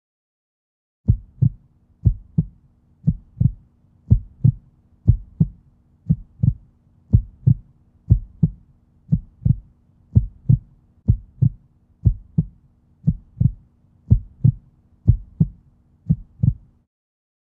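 Heartbeat sound effect: paired low thumps, a lub-dub about once a second, over a faint steady low drone. It starts about a second in and stops shortly before the end.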